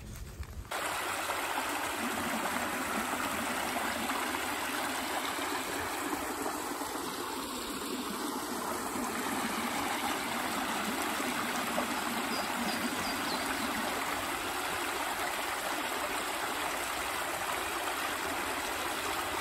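Shallow rocky creek running over stones and a small cascade, a steady rush of water that starts abruptly a moment in and holds even.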